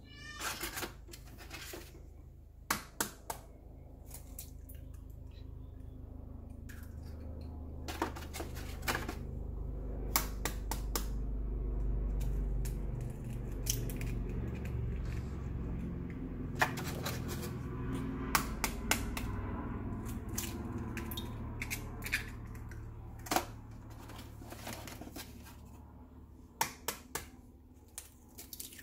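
Eggs cracked one after another against the rim of a bowl and their shells broken open: sharp taps and cracks in small clusters every few seconds. A low rumble swells and fades under them in the middle.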